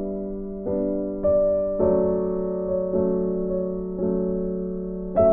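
Background music: slow, gentle keyboard chords, a new chord about every half second to a second, each fading slowly.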